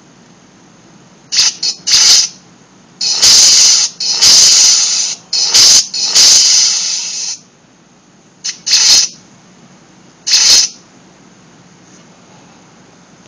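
Lightsaber sound effects played by a homemade add-on sound-effect test circuit: a series of loud hiss-like swishes, two short ones, then a longer run of several, then two more short ones near the end.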